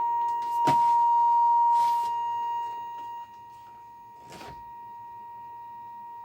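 Steady high electronic beep tone from a pine TV clock radio, broken by a few sharp clicks; the tone drops in loudness about three seconds in.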